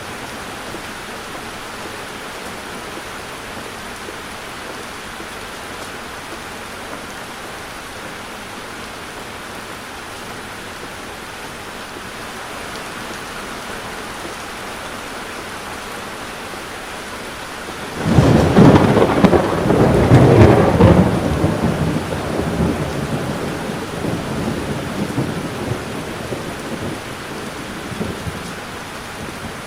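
Heavy rain hissing steadily on the car. About two-thirds of the way in, a sudden loud clap of thunder breaks in and rumbles on, fading over about ten seconds.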